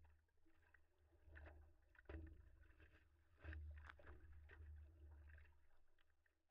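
Faint water sloshing and splashing against a stand-up paddleboard on the open ocean, with louder splashes about two and three and a half seconds in, over a low steady rumble.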